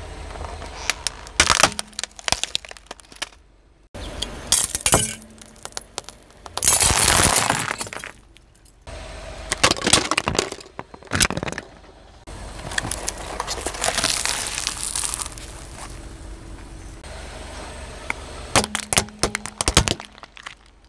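A car tyre rolling slowly over objects on asphalt and crushing them: sharp cracks and crunches of breaking hard plastic, such as a desk calculator and plastic toys, in several separate bursts.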